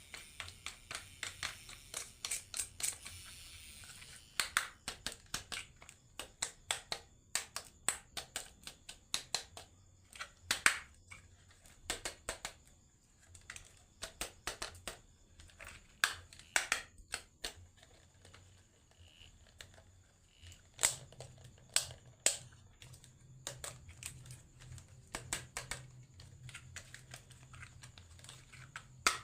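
Marbles clicking and clattering down a HABA wooden marble run: a long run of irregular sharp clicks, with louder knocks now and then.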